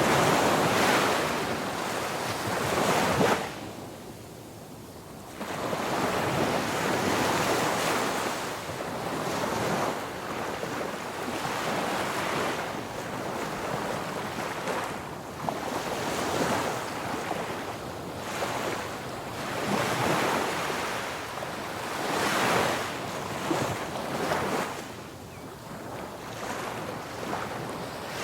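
Ocean waves breaking on a beach: a steady wash of surf that swells and fades every few seconds, with the loudest breakers near the start and a brief lull a few seconds in.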